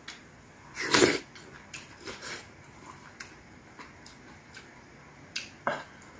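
Close-up eating sounds: a loud mouthful taken off a spoon about a second in, then chewing with small mouth clicks. Two sharp clicks of a utensil come near the end.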